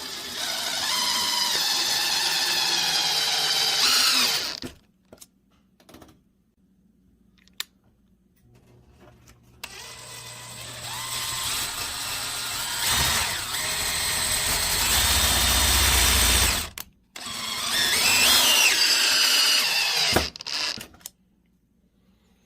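A handheld power tool such as a drill running in three separate bursts with silent gaps between them. Its whine shifts in pitch as it works.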